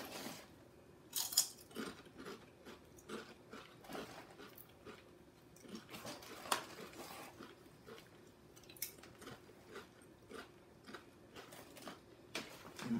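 Kettle Brand sea salt potato chips being bitten and chewed close to the microphone: irregular crunches and crackles, the sharpest about a second in and around the middle.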